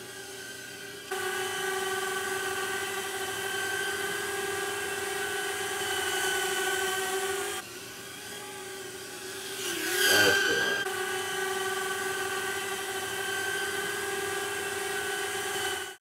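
Inductrix-based micro quadcopter flying, its tiny brushed motors and propellers giving a steady high-pitched whine. The whine jumps louder about a second in and drops back for a moment past the middle. Around ten seconds in it swells to its loudest with a brief dip in pitch, then holds steady and cuts off just before the end.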